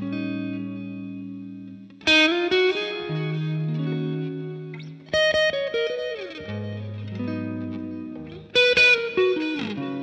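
Fender Stratocaster electric guitar playing a lead line through the Universal Audio OX's emulated 2x12 cabinet, a lightly overdriven lead tone. Long held notes are broken by quick runs of picked notes about two, five and eight and a half seconds in.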